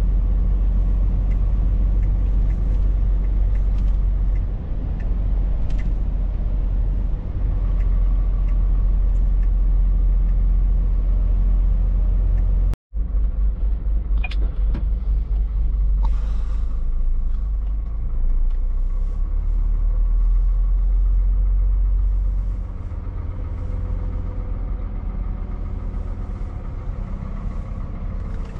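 Scania S 680's V8 engine running with road noise, heard from inside the truck's cab. About halfway there is a sudden break, after which the engine runs at low speed with a low pulsing rumble, a little quieter for the last few seconds.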